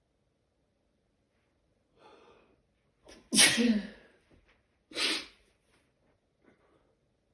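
A person sneezing twice during a sneezing fit, the two sneezes about a second and a half apart and the first the louder, each preceded by a gasping in-breath.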